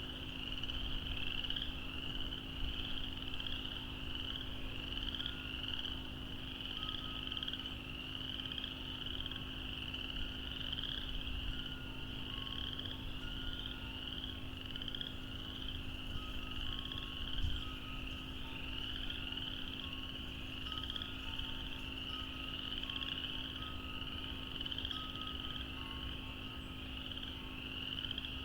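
A dense chorus of many frogs calling together without a break, a shrill high-pitched wall of overlapping calls. A steady low hum sits underneath, and there is a single soft low thump about two-thirds of the way through.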